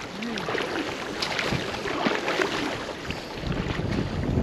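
Lake water splashing and lapping, with many small sharp splashes, and wind buffeting the microphone that builds to a low rumble in the last second or so.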